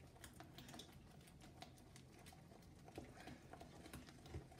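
Faint, irregular clicks and light scrapes of a utensil stirring thick pancake batter in a mixing bowl as the flour is worked in.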